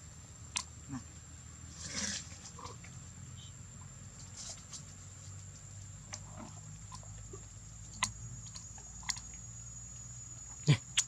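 Macaques grabbing at a small drink carton held out by hand: scattered sharp clicks and a brief rustle about two seconds in, the loudest click near the end, over a steady high-pitched whine.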